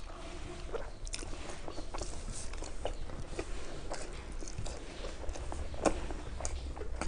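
Two people chewing and eating steamed momo dumplings, with scattered soft smacks and wet mouth clicks.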